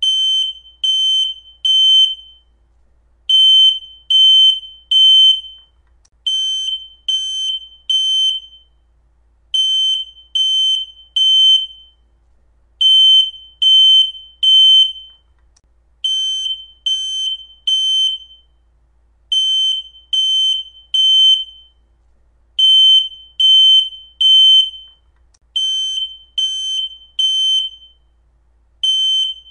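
Smoke alarm going off: high-pitched beeps in groups of three, with a short pause after each group, repeating about every three seconds. This is the temporal-three pattern, the alarm's full smoke and fire evacuation signal, not a single low-battery chirp.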